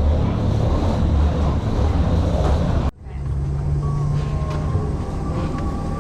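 Steady aircraft and ramp noise during boarding: a loud low rumble that cuts off abruptly about three seconds in. It gives way to a quieter steady hum with a faint high tone.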